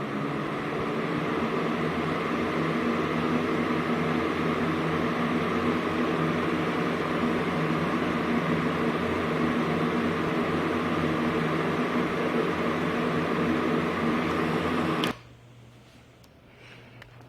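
Electric fan running at speed: a steady motor hum with several overtones under a broad rush of moving air, building up over the first couple of seconds. About 15 seconds in it cuts off abruptly, leaving a much quieter low hum.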